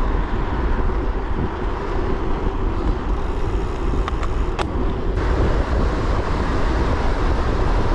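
Steady traffic noise from a busy road heard while cycling, with wind rumbling on the camera's microphone. A single sharp click about halfway through.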